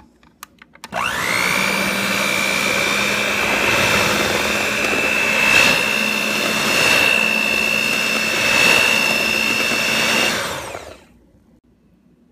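Electric hand mixer with metal beaters running in a bowl of cream cheese and pineapple. A few clicks come first, then about a second in the motor whines up to speed and runs steadily, rising slightly in pitch a couple of times. It winds down and stops near the end.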